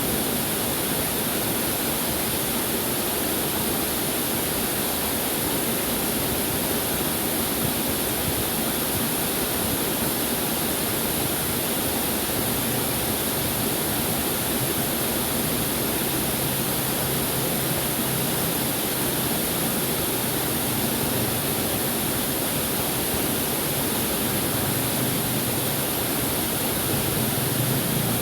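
Waterfall rushing, a steady, even roar of falling water. About halfway through, a low hum joins it and grows a little stronger near the end.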